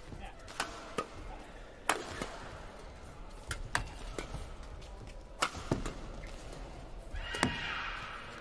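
Badminton rackets striking a shuttlecock in a fast doubles rally: sharp cracks at irregular intervals, some in quick pairs. A louder rasping sound lasting about a second comes around seven seconds in.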